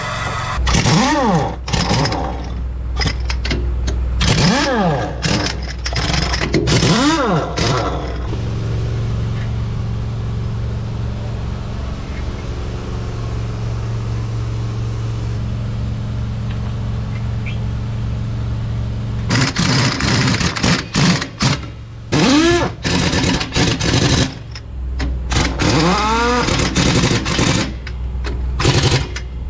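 Pneumatic impact wrench on a tractor-sized wheel's nuts, run in repeated short bursts whose whine rises and falls with each pull of the trigger. For about ten seconds in the middle the bursts stop and only a steady low engine-like hum is left, which also runs under the bursts.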